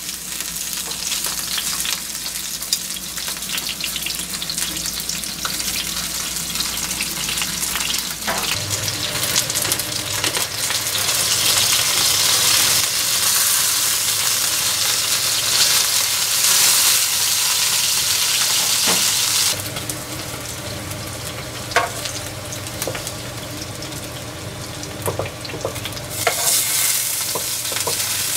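Floured chicken tenderloins shallow-frying in oil in a frying pan: a steady sizzle that grows louder and brighter through the middle stretch, with a few sharp clicks.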